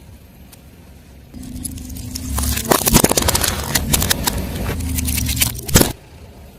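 A car tyre rolling slowly over crunchy objects and crushing them, with a dense run of cracks and crunches over the car's low engine hum. The sound stops suddenly about a second before the end.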